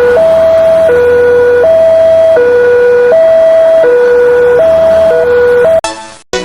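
Two-tone siren, like an ambulance's, alternating steadily between a low and a high note, each held under a second. It cuts off near the end, and a sharp percussive musical hit follows.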